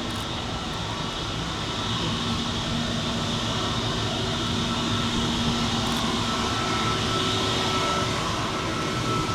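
Airbus A320neo jet engines running steadily: a constant engine noise with several held whining tones, growing slightly louder about two seconds in.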